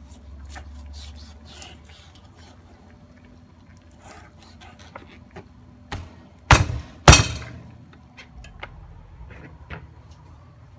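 Kitchen knife cutting raw meat on a plastic cutting board: light taps and scrapes of the blade, then two loud chops about half a second apart a little past the middle.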